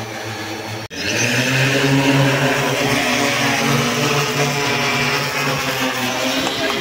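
Multi-rotor agricultural spray drone flying low, its propellers giving a loud, steady hum with a clear pitch. The sound cuts out for an instant about a second in, then comes back louder as the drone passes close.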